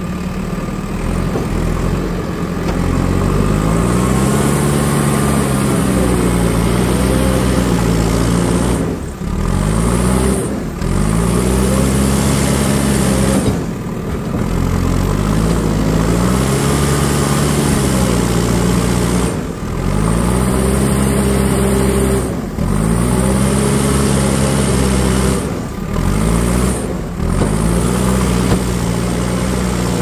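JCB 3DX backhoe loader's diesel engine working under load, revving up and easing back again and again as the front loader bucket pushes soil. The pitch rises and falls every few seconds, with several brief drops in engine note.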